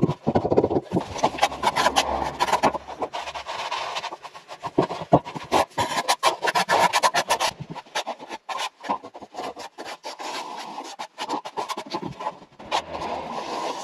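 Hand-tool work on mortar and aerated concrete blocks: steel trowels scraping and scratching, with many short clicks and knocks.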